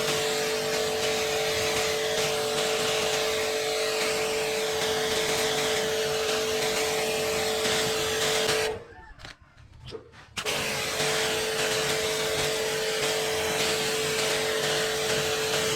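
Electric jet cleaner (pressure washer) running and spraying water: a steady motor hum over a loud hiss of spray. It cuts out about nine seconds in, then starts again about a second and a half later.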